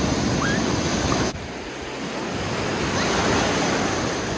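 Ocean surf breaking and washing through the shallows, a steady rush of water. It drops off suddenly about a second in, then builds again.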